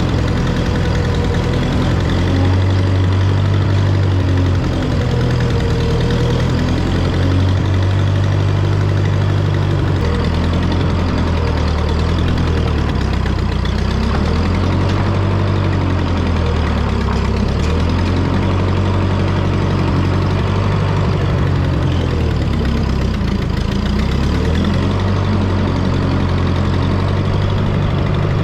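Skid steer engine running, its speed dipping and rising several times in the second half.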